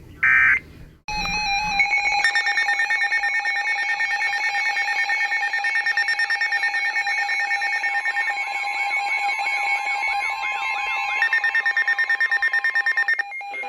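Emergency alert signal from weather and broadcast radio receivers: a short data burst, then about twelve seconds of a loud electronic alarm of several steady tones pulsing rapidly. Warbling chirps run through the middle, and the alarm cuts off sharply near the end. It marks the start of a new alert.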